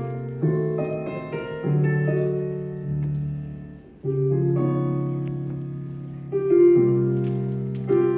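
Piano playing slow chords, each struck and left to ring and fade, a new one every one to three seconds: the accompaniment's introduction before a singer comes in.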